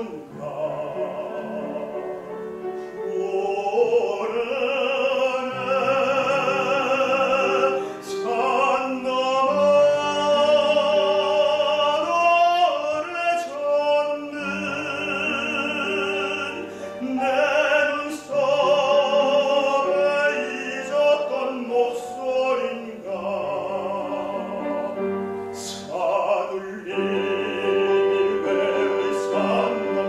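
Male tenor singing a Korean art song in classical operatic style, with wide vibrato on long held notes, over instrumental accompaniment; the phrases are broken by short pauses.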